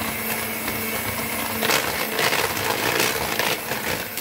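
Electric hand mixer running steadily, its whisk beaters whirring through butter, sugar and eggs in a plastic bowl as they are beaten into a smooth batter. A little under halfway in the sound turns rougher, with the beaters rattling and clattering in the bowl.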